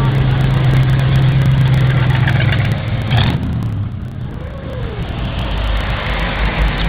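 Cars driving slowly past one at a time with their engines running. A steady engine hum fills the first three seconds, with a sharp knock about three seconds in; after a quieter spell, engine noise builds again near the end.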